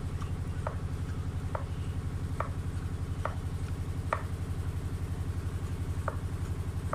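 Staresso SP200 hand-pumped espresso maker clicking with each plunger stroke, about once a second, as it is pumped to push water through the coffee until the pressure gives out. Under it runs a steady low motor-like hum with a fast even pulse.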